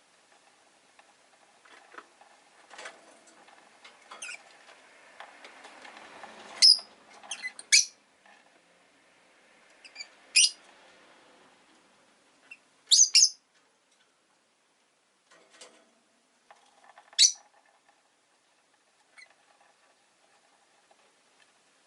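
Rosy-faced lovebird giving short, sharp, high-pitched chirps, some single and some in quick pairs, a few seconds apart. Soft scratching and rustling come before the first loud chirps.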